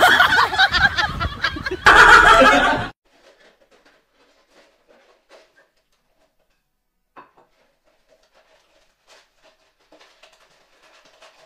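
A loud burst of laughter-like, cartoonish sound effects that cuts off abruptly about three seconds in. After that there are only faint, scattered small clicks and taps.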